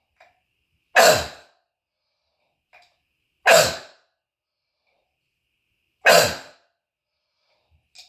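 Harsh, scream-like croup cough from bronchitis: three single loud coughs about two and a half seconds apart, each with a faint short breath in before it and an echo off the room's walls trailing after it.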